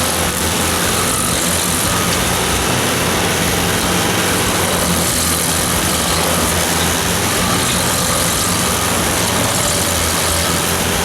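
Rayco RG100 stump grinder working a stump: its turbocharged 100-horsepower Kubota diesel engine runs steadily at high speed while the cutter wheel chews through wood, a dense grinding hiss over the engine's drone.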